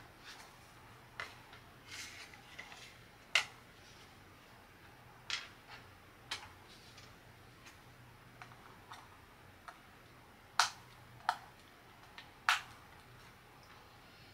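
Light clicks and taps of thin wooden pieces of a DIY book nook kit being handled and fitted together, scattered irregularly a few seconds apart, with the sharpest ones near the middle and about three-quarters through. A faint steady low hum underneath.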